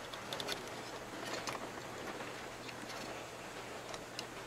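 Faint small clicks and light handling of a plastic model railroad track section and a track-wire connector being worked with a small tool, over a steady low electrical hum.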